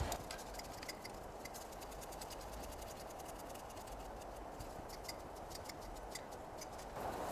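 Faint, quick light metallic ticks and clicks of a conrod bottom cap and its bolts being handled and fitted onto the crankshaft of a Honda GX160 engine, over a steady low hum.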